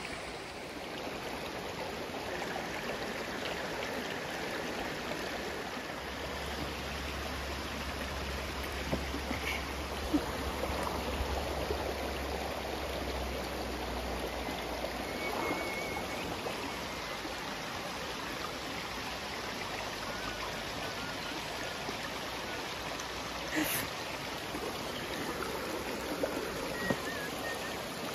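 Creek water running steadily over rocks in a shallow stream.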